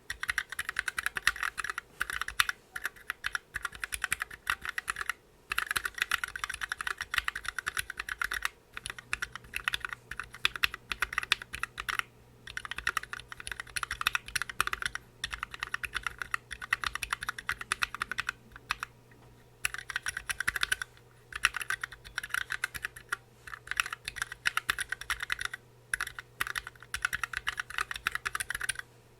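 Continuous fast typing on a Planck Hi-Pro mechanical keyboard with Gateron N1s switches, lubed with Krytox 205g0 and filmed, under PBT keycaps. The keys make a dense stream of clacks, broken by short pauses every few seconds.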